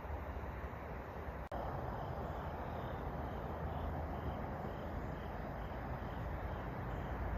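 Steady outdoor background of low rumble and hiss, with faint insect chirps repeating a few times a second. The sound drops out for an instant about one and a half seconds in.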